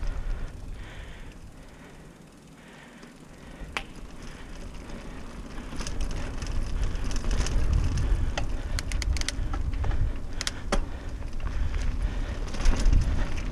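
Trek Marlin 6 mountain bike ridden fast along a dirt singletrack: tyres rumbling over the dirt, with wind on the microphone and scattered sharp clicks and rattles from the bike over bumps. It grows louder from about six seconds in.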